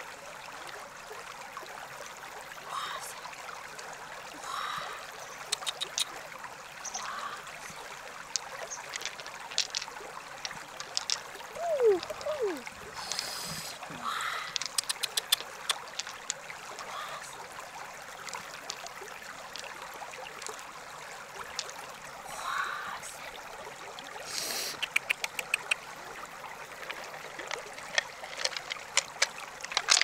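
River water running and trickling steadily, with scattered clusters of quick clicks and taps and a few small splashes.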